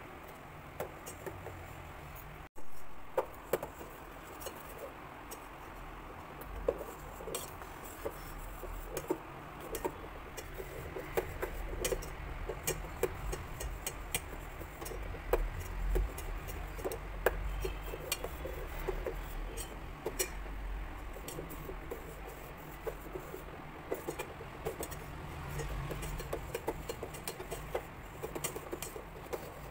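A steel spoon stirring thick millet porridge in a stainless steel pot, clinking and scraping against the pot's sides in many small irregular taps. A short break in the sound, with a knock just after it, comes about two and a half seconds in.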